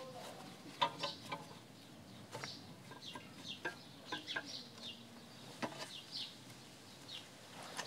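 Short, light clinks of steel as a square bar is handled and set into a homemade screw clamp, with birds chirping again and again in the background: many quick, high, falling chirps.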